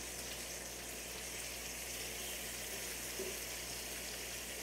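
Bacon frying on a grill: a steady sizzle.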